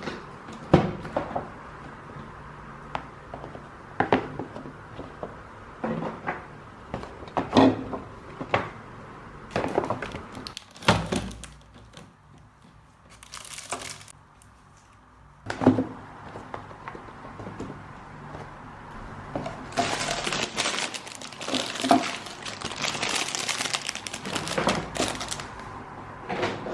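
Christmas decorations and their packaging being handled: scattered knocks and clunks of objects set down and moved, then, about twenty seconds in, several seconds of crinkling rustle like plastic or paper wrapping.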